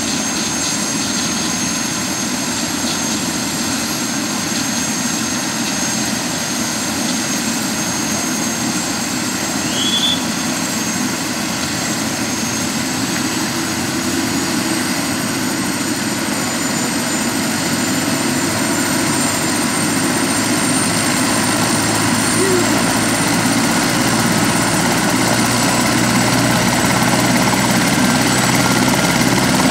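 Eurocopter AS350 B2 Ecureuil (Esquilo) helicopter running on the ground, its Turbomeca Arriel turboshaft and main rotor giving a steady high turbine whine over dense rotor noise. The whine creeps slightly higher and the sound grows gradually louder over the second half.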